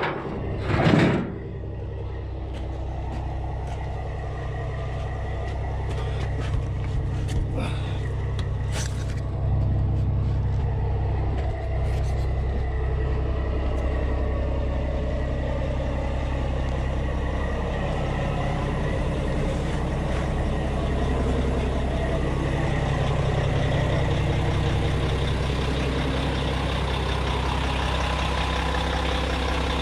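Mack truck's diesel engine idling steadily, with a loud metallic clank about a second in and a few lighter clicks around eight to nine seconds in.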